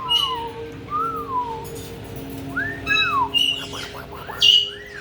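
Caique parrots whistling in smooth rising-and-falling notes, with short sharp chirps mixed in, over a steady faint hum.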